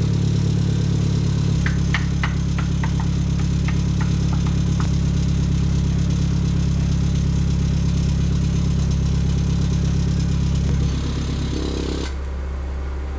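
Nissan S15 Silvia's turbocharged SR20DET engine idling through its exhaust, with a quick run of light metallic ticks about two seconds in. Near the end the exhaust note drops and gets quieter as the X-Force Varex adjustable muffler's valve is switched with its remote.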